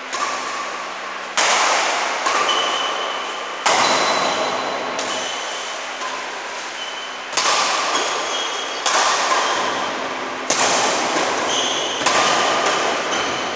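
Badminton rackets striking a shuttlecock during a doubles rally: a string of sharp cracks at irregular intervals, roughly one every second, each ringing on in an echoing hall.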